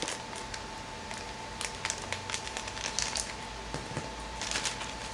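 Thin clear plastic toy bag crinkling and rustling as it is handled, in short scattered bursts of crackle.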